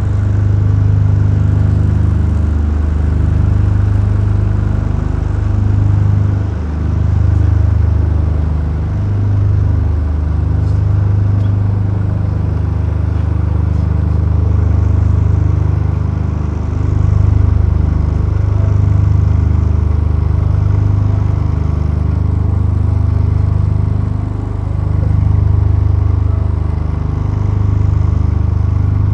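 Low, steady motor rumble, swelling and easing slightly every few seconds, typical of a slow-moving vehicle engine.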